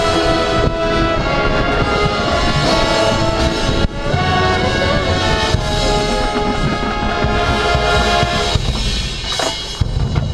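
Drum and bugle corps brass line and percussion playing a loud field-show passage: full brass chords over drums and timpani. The music eases off and thins out in the last couple of seconds.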